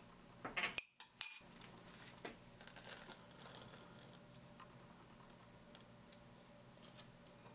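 Light clinks and taps of kitchen utensils against a bowl. A few sharp ones come about a second in, followed by softer scattered taps that fade out, over a faint steady hum.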